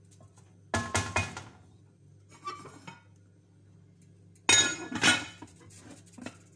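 A metal ladle clinks and scrapes against a metal cooking pot as rice is stirred, about a second in. Past the middle, a glass lid clatters onto the pot's rim with a few loud, ringing clinks.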